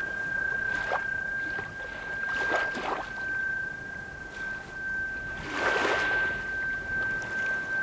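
Gusty wind buffeting the microphone in uneven rushes, loudest about six seconds in, over a steady high-pitched tone.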